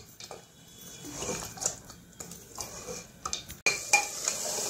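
A spoon scraping and clinking against the pot as the boiled mutton is stirred for frying, then, after about three and a half seconds, a steady sizzling hiss as the mutton fries.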